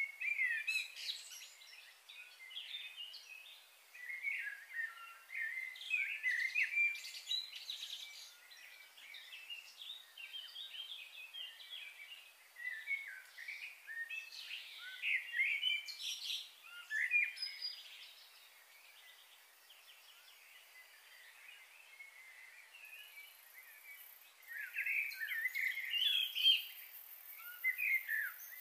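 Birds chirping and singing in quick bursts of short, high notes. The calls thin to a lull about two-thirds of the way through, then pick up again near the end.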